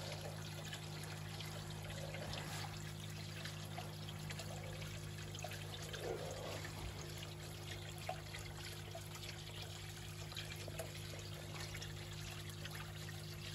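Water trickling and pouring into a koi pond, over a steady low hum.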